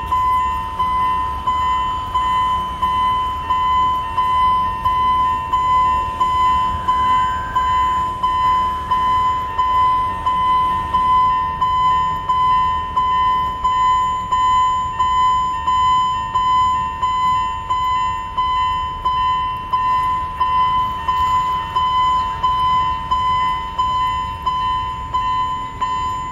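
Railway level crossing warning bell ringing, a steady electronic ding repeating about one and a half times a second.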